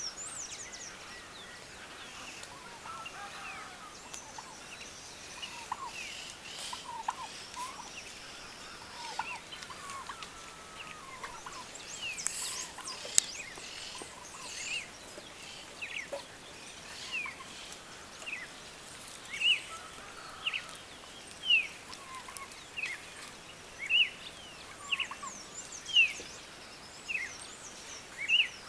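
Short, high-pitched animal calls repeated over and over, sparse at first and growing louder and more regular, about one a second, in the last ten seconds, over a steady outdoor background.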